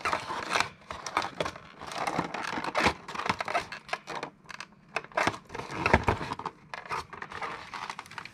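Packaging crinkling and rustling as an item is unwrapped by hand, with irregular clicks, scrapes and tearing.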